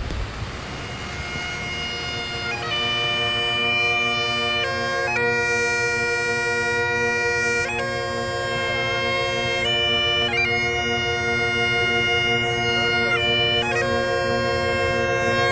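Highland bagpipes playing a tune: a steady drone under the chanter's melody, with quick grace notes flicking between the melody notes. The sound swells in over the first few seconds.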